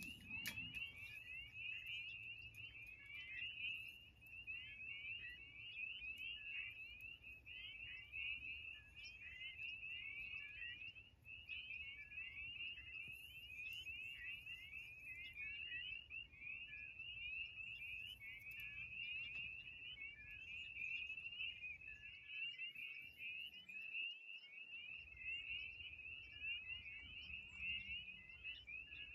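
A dense chorus of small frogs calling, a steady mass of short, high, rising peeps overlapping one another, over a faint low rumble.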